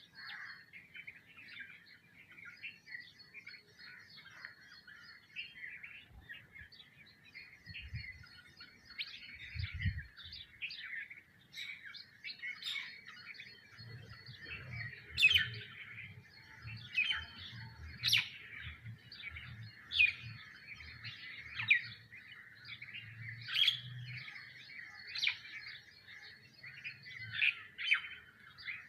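A flock of sparrows chirping continuously, with louder, sharper calls from other birds every second or two from about halfway in. A faint low hum comes in about halfway through.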